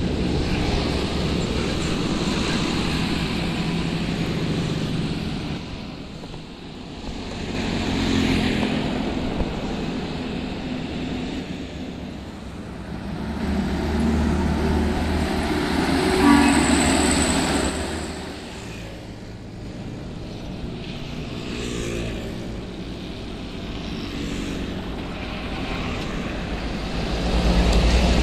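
Diesel trucks and a coach bus driving past on a highway, their engines and tyres swelling as each one passes and fading between them. The loudest pass is about midway, with another vehicle coming up loud near the end.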